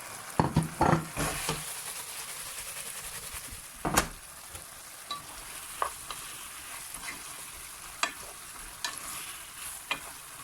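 Chicken pieces going into a pan of sauce, with a few thuds in the first second and a half, then a steady sizzle as a spatula stirs. The spatula knocks sharply against the pan about four seconds in and taps it lightly several more times.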